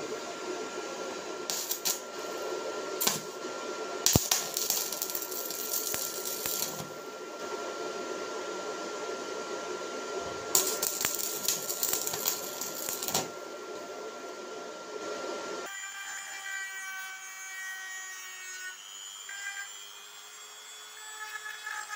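Hand power tools working metal: a steady motor hum with a constant whistle-like tone and several harsh bursts, the longest about four and ten seconds in. After about sixteen seconds it changes abruptly to the thinner, higher whine of a small hand-held rotary tool.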